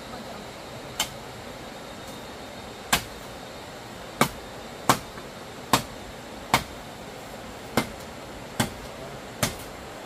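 Hand-tool strikes: nine sharp knocks at uneven intervals, mostly about a second apart and closer together in the middle, over a steady background hiss.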